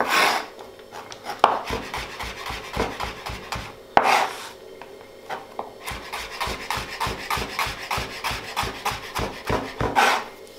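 Large kitchen knife chopping stacked turnip slices into julienne strips on a plastic cutting board, in quick even strokes of about four a second, with a few sharper knocks among them.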